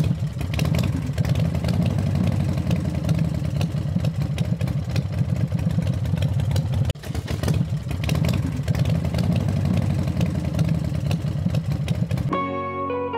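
A motor running steadily with a dense, fast rattle, cut off briefly about seven seconds in and then resuming. Plucked guitar music starts near the end.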